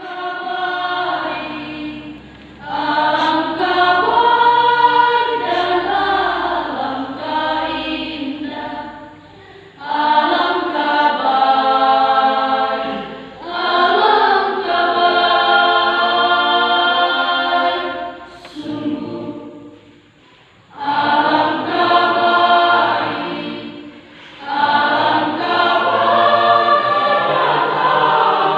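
Women's church choir singing in phrases of several seconds, broken by short pauses for breath, the longest about two-thirds of the way through.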